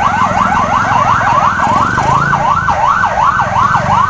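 Ambulance siren on yelp, its pitch sweeping rapidly up and down about four times a second, over a low traffic rumble.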